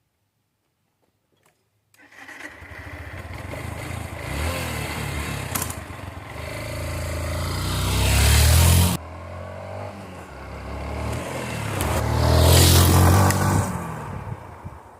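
An engine revving up, twice: a first rise that cuts off abruptly, then a second that builds louder and fades out.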